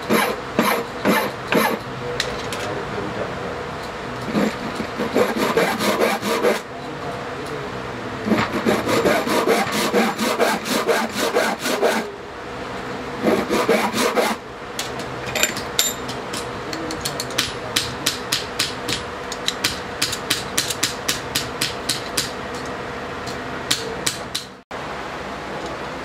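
Hand file rasping back and forth across a metal padlock body held in a vise, in runs of quick strokes about three a second with short pauses between runs. The filing cuts off abruptly near the end.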